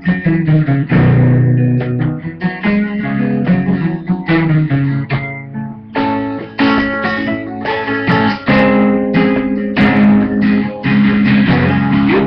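Guitar playing an instrumental break between verses of a song: a busy run of picked and strummed notes over low bass notes. It sounds dull, with the treble cut off.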